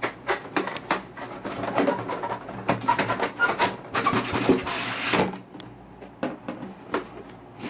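Cardboard packaging of a DJI Phantom 3 Standard box being opened by hand: the lid scrapes and rustles as it slides off, with scattered clicks and a louder rustle about four to five seconds in, then quieter handling with a few clicks.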